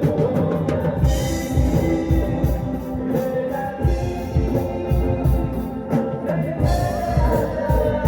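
A rock band playing live, with a drum kit keeping a steady beat under sustained guitar chords.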